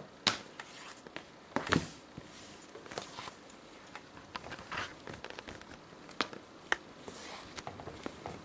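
A cat pawing and scrabbling on a wooden floor: scattered light taps and clicks with soft rustling between them. The two sharpest taps come in the first two seconds.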